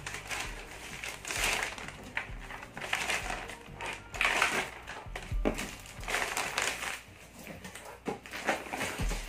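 Clear plastic bag crinkling and rustling in irregular bursts as it is handled and opened, with a couple of soft thumps.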